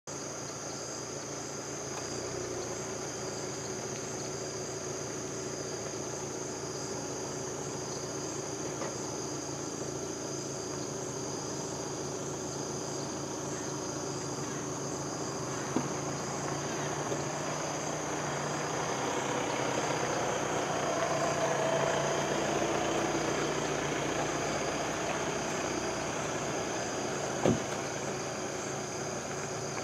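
Night insect chorus: crickets' steady high-pitched trilling over a low steady hum. Two brief knocks, one a little past the middle and one near the end.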